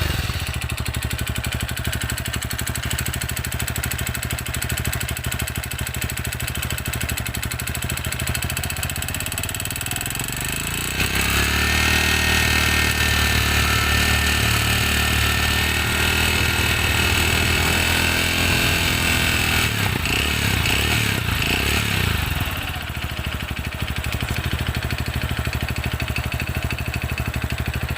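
TVS Radeon BS6 single-cylinder four-stroke engine just after starting. It idles, is revved up about eleven seconds in and held there for around ten seconds, then drops back to idle. The mechanic takes its abnormal engine noise for piston noise from a worn cylinder that needs an oversize piston, not a fuel problem.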